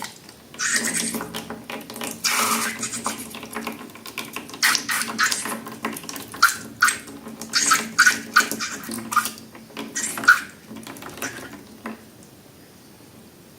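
Wet squelching and pouring as slime ingredients are squeezed out and handled, in a dense run of short splashy bursts with small squeaks. A faint steady hum runs underneath, and the bursts die away near the end.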